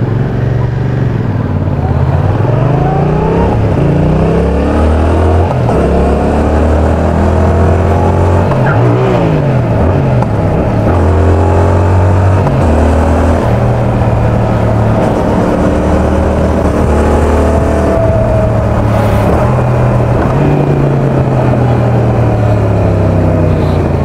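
Yamaha XSR700's 689 cc parallel-twin engine and exhaust under way, the revs climbing and dropping back step by step through the gear changes. Heard from a lavalier mic in the rider's back pocket.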